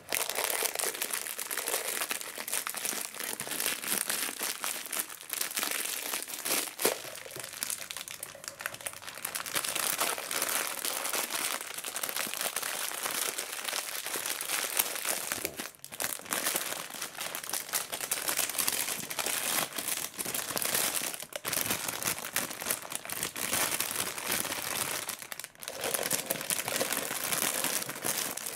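A clear plastic bag of individually wrapped pineapple candies crinkling continuously as hands pull it out of a plastic pot, squeeze it and stuff it back in. The crinkling breaks off twice, briefly.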